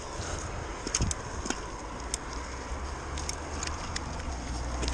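Cars passing on a road, a steady traffic noise with a low rumble that swells near the end, and a few short sharp clicks scattered through it.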